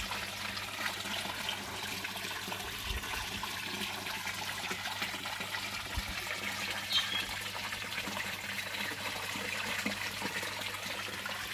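Water from a homemade pond filter's return outlet pouring into a koi pond: a steady splashing and trickling.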